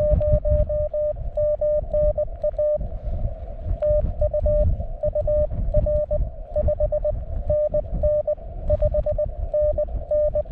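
Morse code from a 20 m CW ham radio: a single steady, mid-pitched beep keyed on and off in dots and dashes, in groups with short gaps between them. Underneath is a loud, low rumbling noise.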